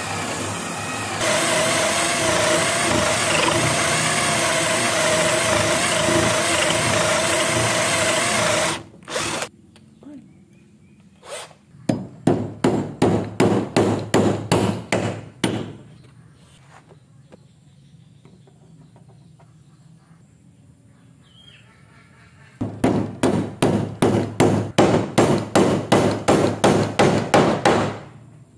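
A power tool runs steadily with a held hum for about nine seconds, then stops. Later come two spells of quick, even back-and-forth strokes on wood, about four a second.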